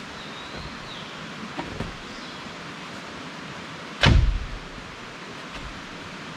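A single sharp knock about four seconds in, with a brief low thud after it, over a steady rushing hiss; two faint taps come before it and a thin high whistle sounds briefly near the start.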